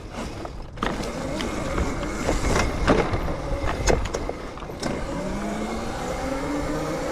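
Razor electric dirt bike being ridden over rough ground: several sharp knocks and rattles as it hits bumps, then the electric motor's whine rising in pitch from about five seconds in as it speeds up, over a steady rumble of wind and tyres.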